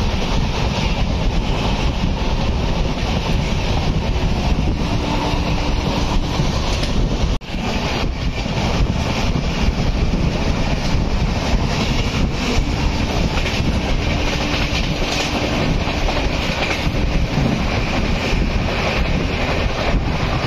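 Moving train heard from on board: steady wheel-on-rail running noise, with a brief dropout about seven seconds in.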